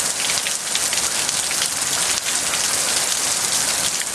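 Heavy hail pelting down: a dense, steady clatter of countless hailstones striking hard surfaces.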